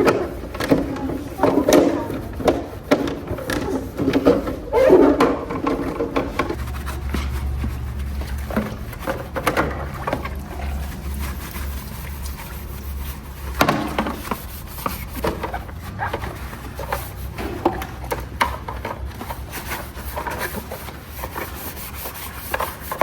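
Scrubbing and rubbing with irregular knocks and clatter, busiest in the first six seconds. A low steady hum sets in about six and a half seconds in.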